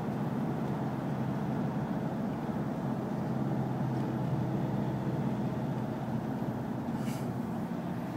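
Steady road and engine noise of a car driving, heard from inside the cabin, with a brief hiss about seven seconds in.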